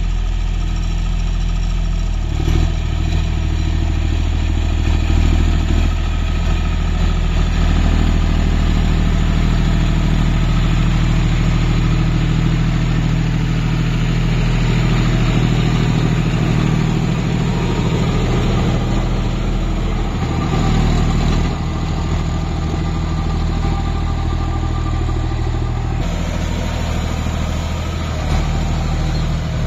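John Deere 5050D tractor's three-cylinder diesel engine running steadily under load while it pulls a Shaktiman rotavator tilling deep into the soil.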